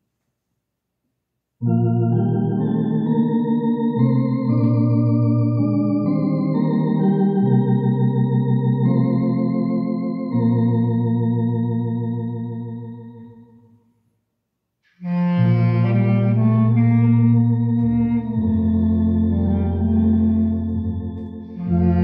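Home electronic organ playing slow sustained chords with a bass line, starting about a second and a half in and dying away to silence around fourteen seconds. About a second later the organ starts again, now joined by a clarinet.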